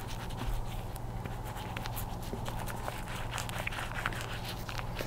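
Wet shaving-soap lather being rubbed onto the face with the fingers and palms, giving many faint, irregular wet clicks and crackles. A steady low hum runs underneath.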